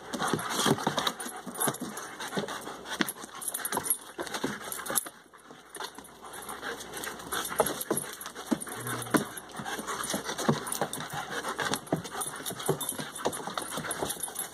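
Two German Shepherds play-wrestling on a wooden deck: scuffling, panting, and many quick clicks and taps from their claws and paws on the boards. There is a short lull about five seconds in.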